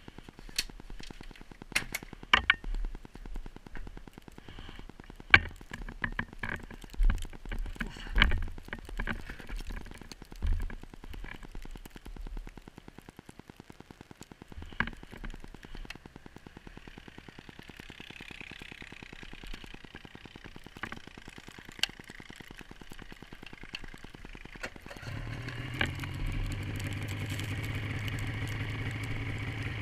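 Scattered sharp clicks and knocks through the first half. About 25 seconds in, a snowmobile engine comes on and runs steadily at idle.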